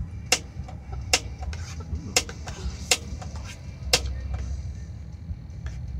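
A series of sharp clicks or knocks, irregularly spaced about a second apart and strongest in the first four seconds, over a steady low rumble.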